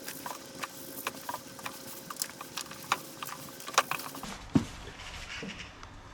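Soil being handled and tipped back into a container: irregular crackles and sharp clicks for about four seconds, then a dull thump.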